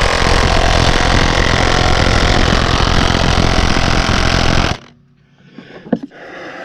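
Cordless battery impact wrench hammering hard on a seized lug nut, trying to break it loose; it runs steadily and stops suddenly about five seconds in, followed by a single knock a second later.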